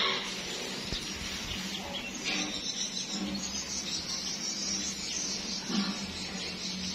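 Outdoor ambience: birds chirping over a steady high insect hiss, with a faint steady low hum underneath.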